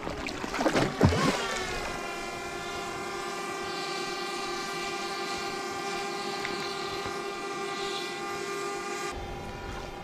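A steady, horn-like chord of several tones held for about seven seconds. It comes in after a swooping glide about a second in and cuts off abruptly near the end.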